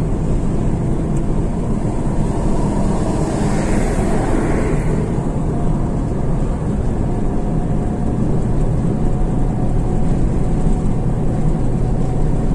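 Steady engine and road noise of a vehicle driving along a highway, with a brief swell of hiss about four seconds in and a faint steady hum coming in over the second half.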